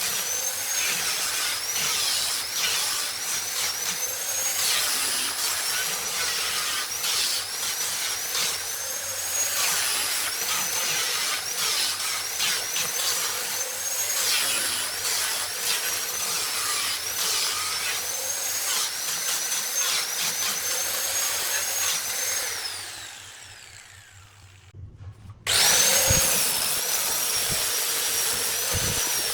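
High-speed electric power tool working wood, its high motor whine dipping in pitch again and again as it bites into the work and recovering between cuts. Near the end it runs down and stops, then starts again abruptly a couple of seconds later.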